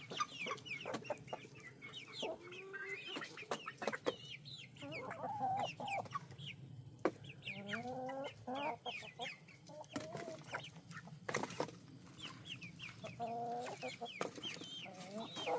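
A flock of chickens clucking and calling while they go after live crickets, many birds at once, with short high calls mixed with lower clucks.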